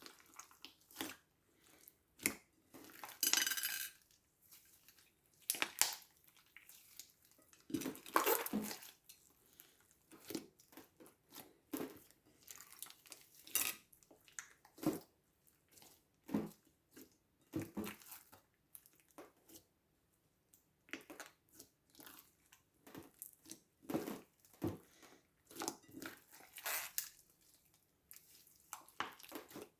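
Slime being mixed and squished by hand, giving irregular sticky pops, squelches and crackling clicks, with a few longer crackling stretches.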